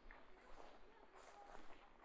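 Faint footsteps of a person walking along a nature trail, soft scuffing steps.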